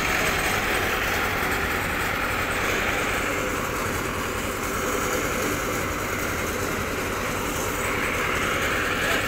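Steady mechanical running noise, a continuous rushing hiss from machinery working on the site, easing slightly midway and building again near the end.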